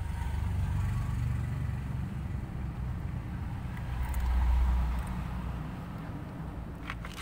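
Low rumble of road traffic, swelling about four seconds in as a vehicle passes.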